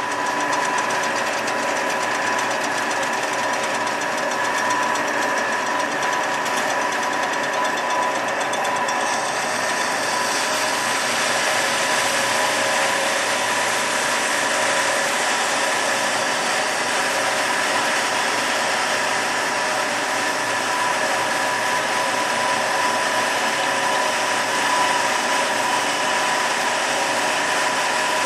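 Amada HA250W horizontal band saw running with its blade turning, driven by its 5 HP motor: a steady mechanical hum and whine with a couple of held tones. About nine seconds in, a higher hiss joins and the sound then stays steady.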